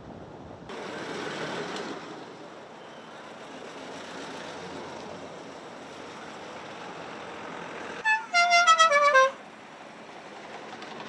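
Street traffic from passing classic cars, then near the end a musical car horn plays a quick run of short notes that step down in pitch, the loudest sound here.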